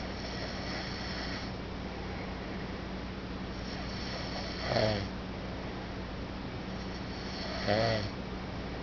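A person snoring in deep sleep: two loud snores about three seconds apart, one near the middle and one near the end, each led in by a softer breath.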